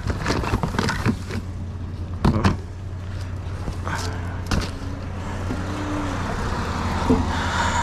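A vehicle engine running steadily, with a few sharp knocks and clicks in the first half.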